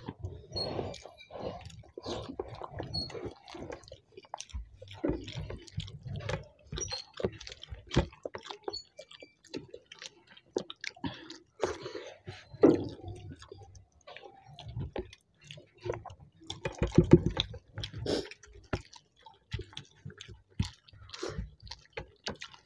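Two people eating soft khichuri with their hands: irregular chewing, lip smacks and the squish of rice worked between fingers on plates, with short clicks scattered in between.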